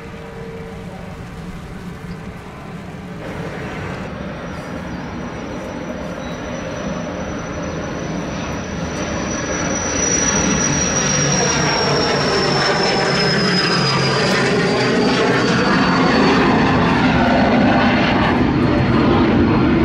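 Small twin-engine business jet taking off at full power. Its engines run with a high turbine whine that slowly falls in pitch as it passes and climbs away. The sound grows louder through the first half. For about the first three seconds a quieter jet airliner's engine noise is heard.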